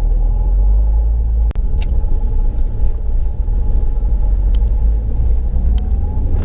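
Mahindra XUV500 on the move, heard from inside the cabin: a steady low rumble of engine and road, with a few short clicks. No gearbox howl is heard under pull; the noise that came from the six-speed manual gearbox before its overhaul is gone.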